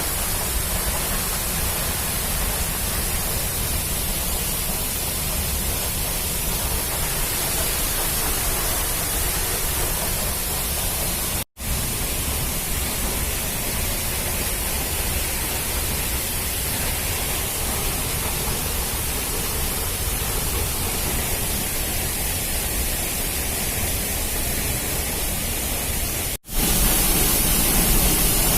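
Waterfall's rushing water, a steady unbroken roar. It cuts out briefly twice, about eleven seconds in and near the end, and is a little louder after the second break.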